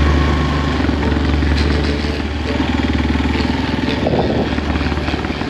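Motorcycle engine running steadily at low speed, with a fast, even throb of its firing.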